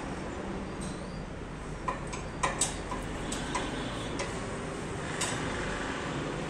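Scattered sharp metal clicks and taps, about nine of them, from hands working tools and parts in a tractor's engine bay, over steady background noise.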